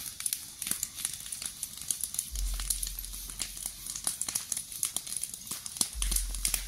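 Piles of dry cut brush and straw burning, with a dense, irregular crackling and popping.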